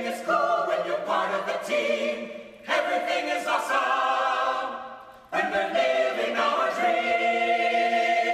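Soundtrack music: a choir singing held chords in three long phrases.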